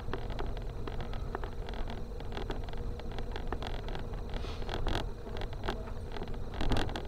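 Car driving slowly over a broken, unpaved road, heard from inside the cabin. A steady low engine and tyre rumble runs under frequent short knocks and clicks from stones and bumps, with a heavier jolt near the end.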